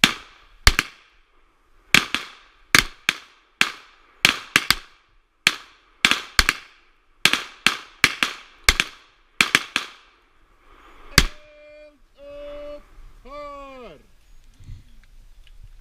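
Pistol shots from several shooters firing together at field-shooting targets after the fire command: about two dozen sharp reports at an irregular pace over some eleven seconds, ending with a lone shot. A brief pitched call follows, ending in a falling tone.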